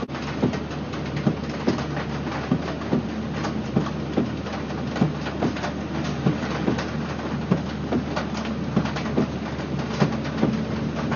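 A vehicle running: a steady low drone with frequent, irregular knocks and rattles.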